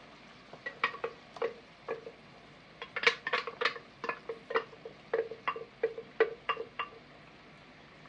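Blender jar of thick blended sauce being knocked and tapped to empty it into a frying pan: a string of sharp knocks, each with a brief ring, bunched most tightly about three seconds in.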